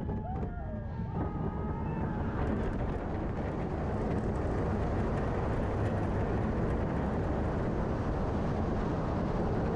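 Riders on the Kingda Ka steel coaster yell briefly as the train goes over the top. Then a steady, dense roar of wind on the microphone and the train running down the track builds over the next few seconds as it plunges down the vertical drop.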